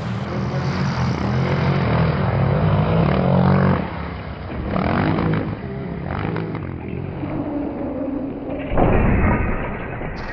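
Added-in sound effects: a low rumble that swells over the first few seconds and dips, then a sudden loud boom-like hit near the end.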